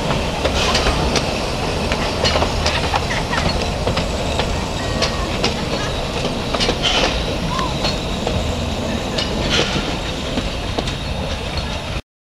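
Train cars rolling along the track: a steady rumble with scattered sharp clicks and knocks from the wheels on the rails. It cuts off suddenly near the end.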